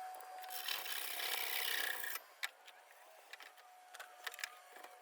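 Wood scraping against wood for about a second and a half, a board sliding or being rubbed along another, followed by a few light knocks.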